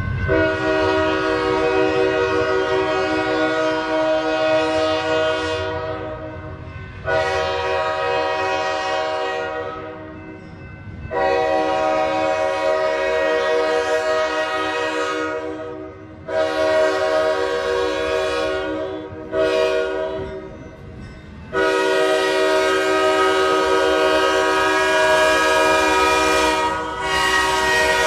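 A diesel locomotive's air horn sounding a string of blasts, mostly long, with a short one about two-thirds of the way through. A low train rumble runs underneath.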